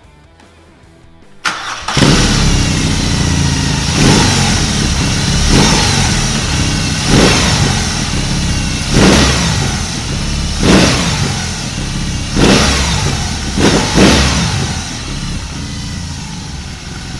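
BMW R 18's 1802 cc two-cylinder Big Boxer engine being started about a second and a half in, then running through its fishtail exhaust. Seven quick throttle blips follow, each revving up and dropping back to idle.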